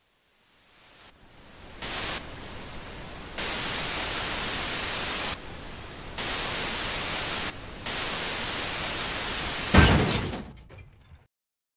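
Static-like hiss that switches abruptly between a few loudness levels in even blocks, with a short louder swell about ten seconds in that fades out.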